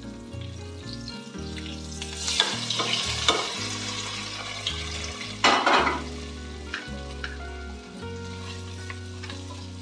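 Hot ghee tempering with pepper, cumin, cashews and curry leaves poured from a non-stick frying pan onto cooked pongal in an electric cooker pot, sizzling as it hits. The pan is scraped out over the pot. The sizzle is loudest about two and a half and five and a half seconds in.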